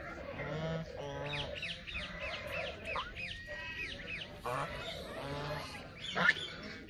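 Domestic geese honking repeatedly, with a run of short high peeps from the gosling about a second in; the loudest honk comes near the end.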